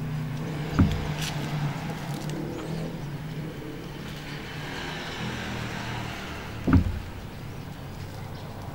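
Hands mixing dry coconut coir and soft banana stem in a wooden box, a rustling of loose fibres. Two sharp thumps, about a second in and again near the seven-second mark, are the loudest sounds, over a low hum in the background that fades out and comes back.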